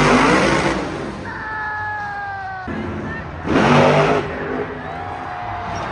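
Supercharged V8 monster truck engines revving hard and then dropping in pitch as the throttle comes off. Two loud blasts of noise come at the start and about three and a half seconds in.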